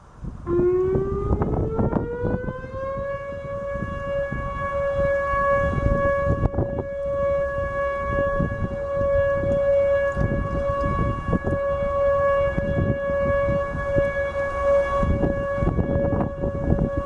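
Whelen 2910 outdoor warning siren sounding a monthly test: its tone starts about half a second in, rises in pitch for about two and a half seconds, then holds one steady, loud tone.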